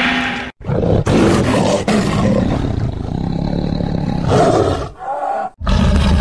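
Kaiju roar sound effect: a long, rough, noisy monster roar of about five seconds, starting just after a brief silence. Near the end it cuts off and the next roar begins.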